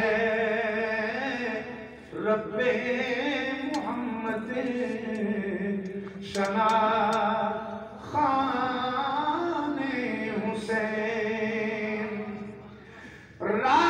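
A man's voice chanting a devotional recitation in long, drawn-out sung phrases, breaking for breath every few seconds.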